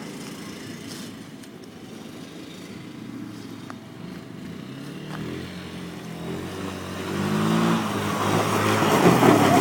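A John Deere Gator utility vehicle's engine revs as it approaches, getting louder over the last few seconds. The pitch rises and falls as it is driven hard and slid across snow and ice. A rising hiss from the tyres comes in near the end.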